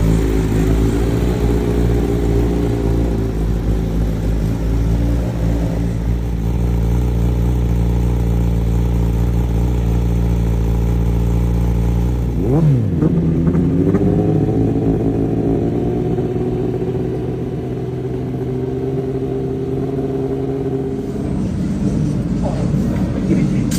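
Superbike racing motorcycle engines running steadily. About halfway through the pitch sweeps briefly, then a steady engine note settles at a different pitch.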